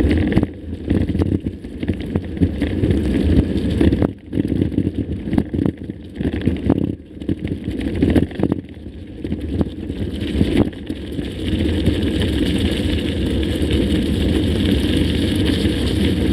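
Wind buffeting the microphone over the rumble and rattle of a mountain bike riding a rough trail, with scattered short knocks from bumps. The noise gusts unevenly, drops out briefly a couple of times, then evens into a steadier rush near the end.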